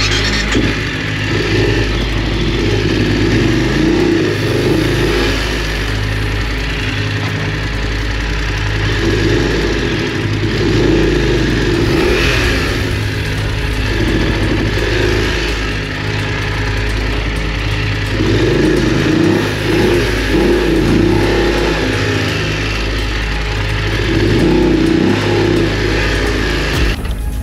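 BMW F850GS parallel-twin motorcycle engine running under throttle while riding, its revs swelling and easing off several times.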